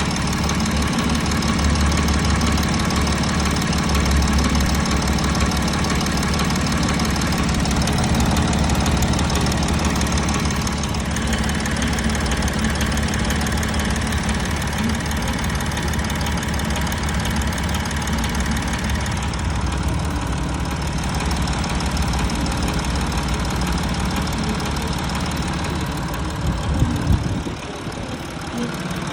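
Audi Q7 (4M) CVMD diesel engine idling steadily with a knock whose cause the owner cannot pin down. A brief louder moment comes near the end, after which the sound settles slightly lower.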